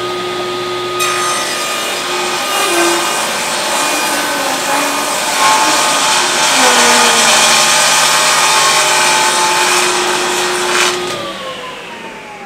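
Table saw ripping a board along the fence. The motor is already running when the blade bites into the wood about a second in, and it cuts steadily for about ten seconds. Near the end the saw is switched off and spins down with a falling whine.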